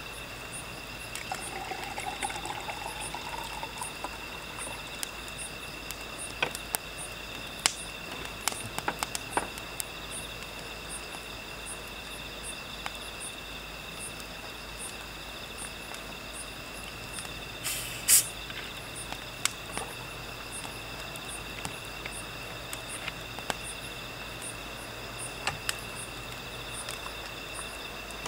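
Crickets and other night insects chirring steadily, one pulsing about twice a second, over a wood fire crackling in a metal brazier with scattered sharp pops, the loudest about 18 seconds in.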